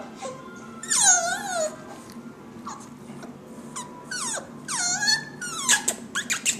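Jack Russell Terrier puppy whining: a series of high, wavering cries, the longest about a second in and again about five seconds in, with shorter ones between. A few sharp clicks come near the end.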